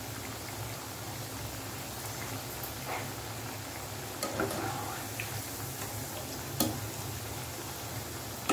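Baby corn pieces deep-frying in hot oil in a kadhai, a steady sizzle; the pieces are still moist inside and not yet fully crisp. Over the second half a wire skimmer stirs them, with a few light clicks against the pan.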